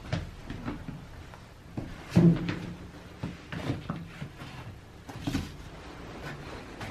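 Someone putting on shoes: shuffling feet and handling noises with several knocks and thuds, the loudest about two seconds in.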